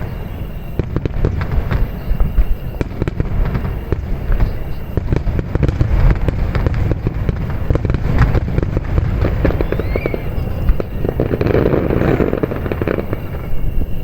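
Fireworks display finale: many shells bursting in quick, overlapping succession with a deep booming rumble and crackle, without a break.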